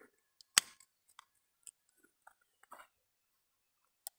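Hand pruning shears snipping off a side shoot of a young grapevine: one sharp snap about half a second in, then a few faint scattered clicks.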